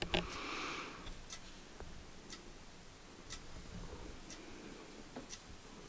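A clock ticking faintly, about once a second, with a brief rustle near the start.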